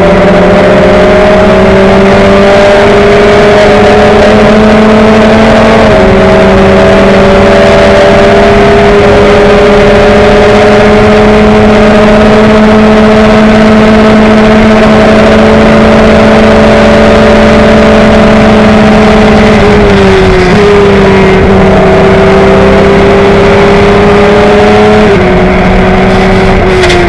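Tiga SC84 sports racer's engine running hard at a high, nearly steady engine speed, heard loud from the open cockpit. The pitch steps down slightly about six seconds in, dips briefly around twenty seconds, and drops again near the end.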